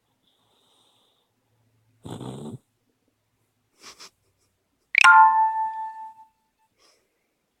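A sleeping Chihuahua gives one short snore about two seconds in. About five seconds in, a loud bell-like ding sounds and rings away over about a second.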